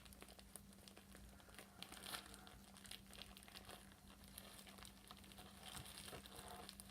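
Faint, irregular crackly clicks of slime being squished and pulled by hand, over a faint steady hum.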